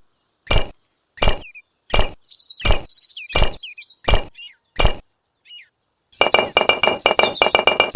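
Sharp, evenly spaced taps about every 0.7 seconds, with faint bird-like chirps between them. About six seconds in they give way to a fast run of ringing clinks.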